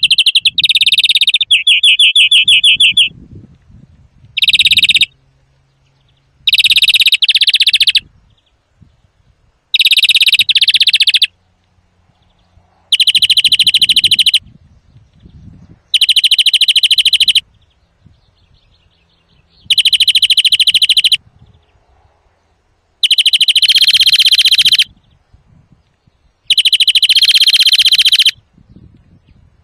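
European greenfinch singing loudly: rapid trills and buzzing phrases of a second or two, repeated about every three seconds with short pauses between.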